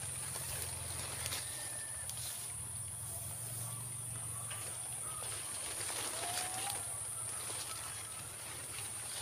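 Outdoor rural ambience: a steady high-pitched hiss and a low rumble, with a few faint short bird chirps, one rising about six seconds in.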